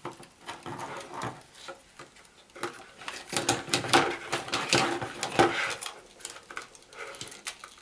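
Plastic telephone extension socket being reassembled by hand: a run of small plastic clicks, knocks and scrapes as the parts are fitted together, busiest in the middle.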